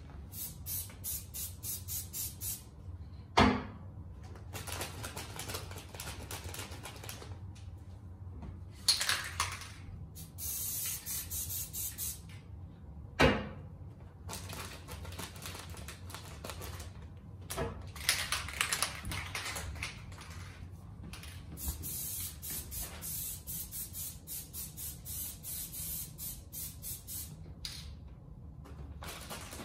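Hand spray bottle squeezed in quick repeated pumps, each a short hiss, about five a second, coming in several spells. Two sharp knocks, about three and thirteen seconds in, are the loudest sounds.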